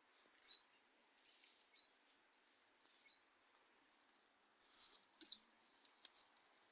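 Faint outdoor insect chorus: a steady high-pitched trill throughout, with a short chirp repeating about every second and a quarter. Two sharp clicks about five seconds in.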